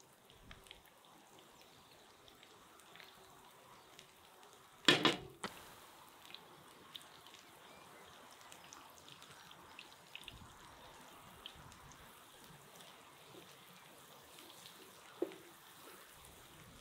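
Chopped garlic sizzling in hot oil in a frying pan, with scattered small crackles, as it is stirred with a wooden spatula. A loud short knock about five seconds in and a smaller one near the end.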